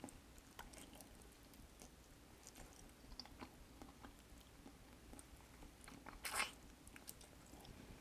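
Faint close-miked chewing and mouth sounds of a person eating, with scattered small clicks and one louder bite or crunch about six seconds in.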